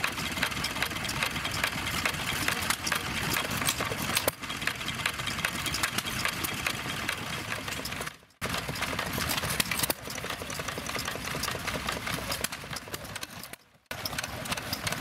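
Small vintage stationary engines running, with a fast, even run of mechanical clicks and knocks over a steady engine noise. The sound drops out abruptly twice.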